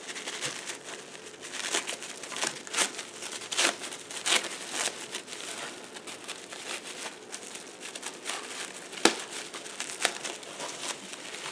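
Vanguard trading cards being handled and sorted by hand: irregular rustling and crinkling with soft flicks, and one sharper tap about nine seconds in.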